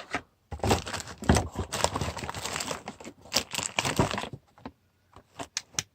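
Close rustling and crinkling handling noise for about four seconds, then a few light separate clicks near the end.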